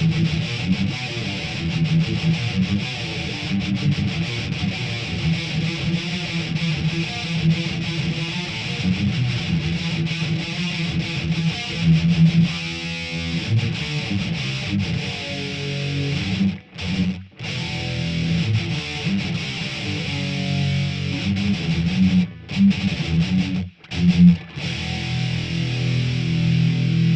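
Heavily distorted electric guitar, quad-tracked, playing a blackened metal riff as a tone test. The playing stops short a few times about two-thirds of the way through.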